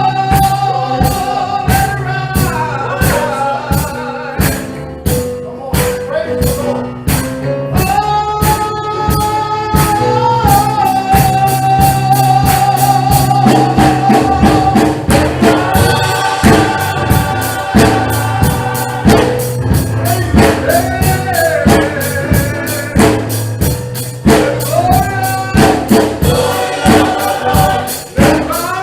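A gospel church choir singing with instrumental backing and a steady tambourine beat.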